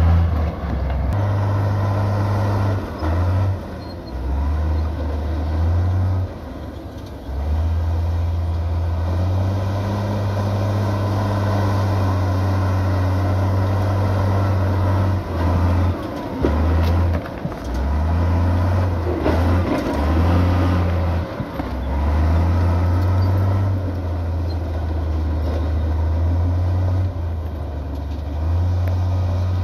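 Diesel engines of heavy earthmoving machinery, bulldozers and dump trucks, running steadily. The deep rumble drops out briefly several times.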